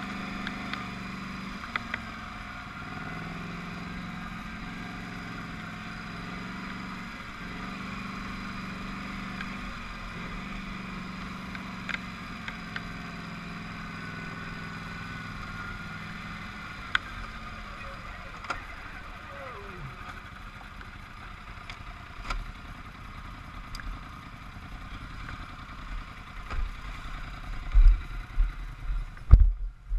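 Polaris Scrambler 850 ATV engine running at a low, steady pace downhill, with scattered light clicks and knocks. About two-thirds of the way through, the engine note falls away. Near the end come several heavy low thumps and jolts.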